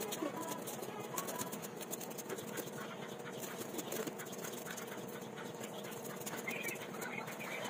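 Kitchen knife scraping scales off a whole milkfish on a plastic cutting board: a quick, irregular run of short rasping scrapes and clicks.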